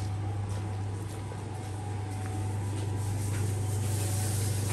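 City street ambience: a steady low hum under a background of noise that swells in the second half.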